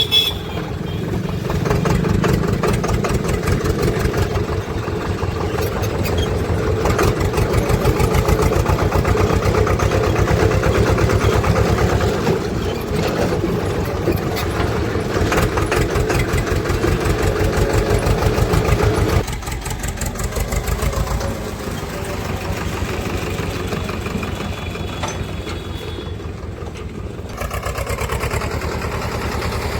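Swaraj tractor's diesel engine running hard with a fast, even beat, then dropping suddenly to a slower, quieter running speed about two-thirds of the way through.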